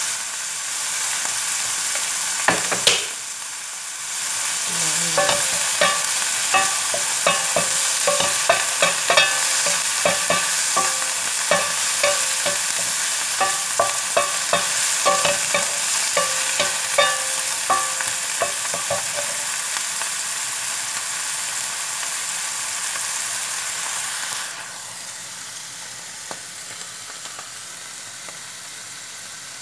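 Meatballs and green beans sizzling in oil in a frying pan, with a wooden spatula stirring and clacking against the pan again and again for much of the time. The sizzle drops quieter about 25 seconds in.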